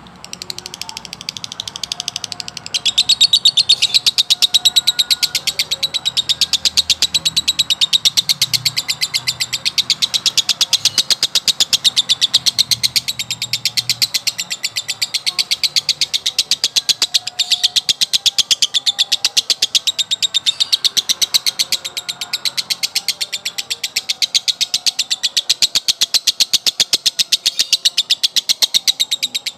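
Male lovebird's long, unbroken 'ngekek' chatter: a fast, even stream of high chirps, many a second, that swells about three seconds in and runs on without a pause. This nonstop run is the 'konslet' style that songbird keepers prize for its length.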